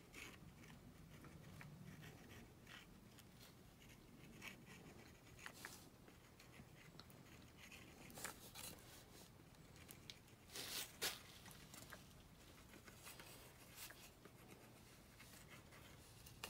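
Near silence: faint handling noises, with a few soft clicks about two-thirds of the way through.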